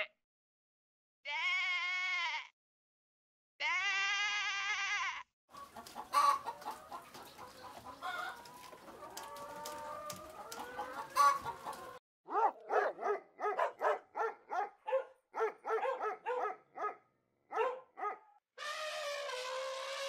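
Two long bleats from sheep or lambs, then a farmyard of chickens: a rooster crowing among hen calls, followed by a run of quick hen clucks, about three a second. Near the end an elephant begins a long trumpeting call.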